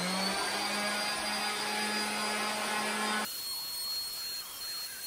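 Electric orbital sander running at full speed against painted wood, sanding down dried wood filler, a steady motor whine with a hiss of the pad on the surface. About three seconds in its pitch changes and it gets a little quieter, then it cuts off suddenly.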